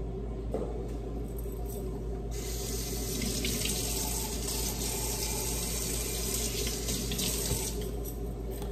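Kitchen tap running water, switched on about two seconds in and off shortly before the end, over a steady low hum.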